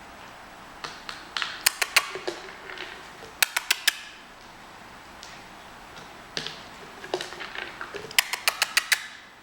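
Small puppies playing: quick runs of sharp clicks and taps, in three bursts of four to six clicks with softer taps between.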